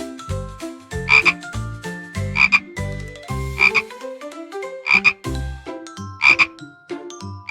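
Frog croaking, with one call about every second and a quarter.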